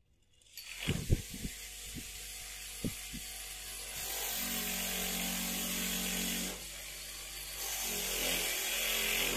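Bench grinder running, with a few sharp knocks about one to three seconds in. Then a steel knife blade is pressed against the spinning wheel in two passes of grinding hiss, starting about four and eight seconds in.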